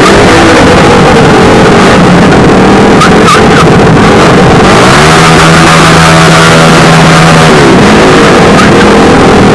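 Many motorcycle engines running together in a group ride, heard loud and close from a moving motorcycle. About five seconds in, one engine revs up, holds a steady note for about two and a half seconds, then drops back.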